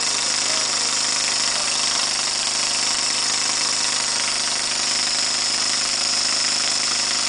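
Snapper riding mower's 14.5 HP Briggs & Stratton engine running steadily at a constant speed. The engine has an exhaust leak at a broken exhaust flange bolt, which the owner says makes a whizzing noise.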